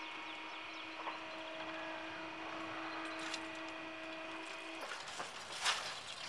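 Electric drive of a level-crossing barrier humming steadily as the boom rises, cutting off suddenly about five seconds in when the barrier reaches upright. A short sharp knock follows near the end.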